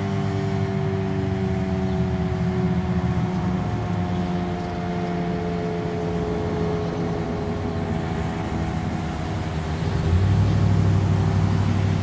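Federal Signal Model 5A outdoor warning siren winding down after its alert, several tones sliding slowly lower in pitch. A low rumble underneath grows louder about ten seconds in.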